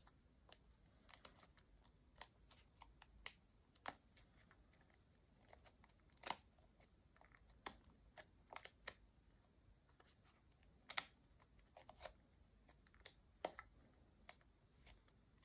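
Faint, irregular clicks and rustles of a stack of die-cut paper layers being handled as the layers of a 3D paper Easter egg are folded out and pressed into shape.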